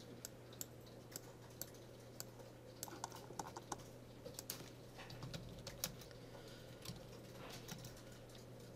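Typing on a computer keyboard: faint, irregular key clicks in short runs, thinning out near the end.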